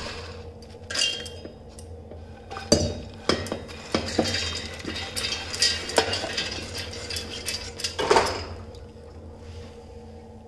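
Light, dry roasted makhana (puffed lotus seeds) being dropped by hand into a stainless-steel mixer-grinder jar: scattered taps and clinks of the seeds and the hand against the steel jar and bowl, with a longer rattle about eight seconds in.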